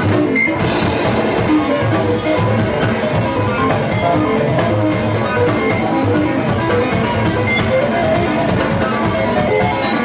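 Live jazz band playing: odd, electronic keyboard sounds over drum kit and bass.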